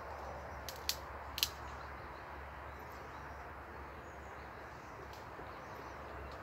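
Quiet outdoor background with a steady low rumble. About a second in come two sharp cracks, half a second apart, the loudest sounds here.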